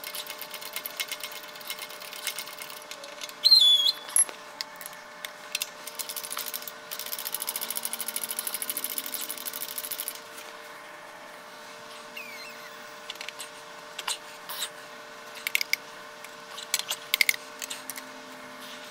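Shop press pushing the inner manifold of a Bobcat 341 excavator's hydraulic swivel joint out of its outer housing. About three and a half seconds in there is a loud metallic clunk with a brief high squeal. Past the middle comes a run of rapid, even clicking for about three seconds, and scattered small metal clicks and taps follow, over a faint steady hum.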